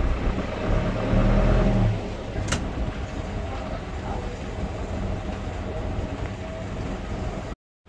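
Urban street traffic noise, with a vehicle passing whose low rumble is loudest about a second in. A short sharp click comes about two and a half seconds in, and the sound cuts out for a moment near the end.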